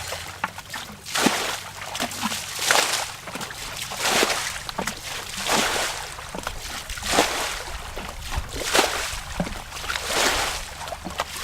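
Water splashing in a steady rhythm, one splash about every second and a half.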